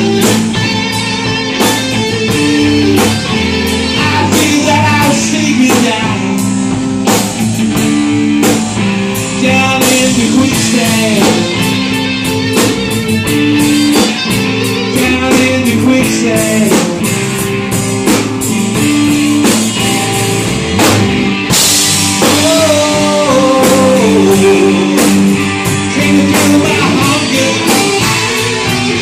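Live rock band playing: a man singing over two electric guitars, bass guitar and a drum kit, with bending guitar or vocal lines in the second half.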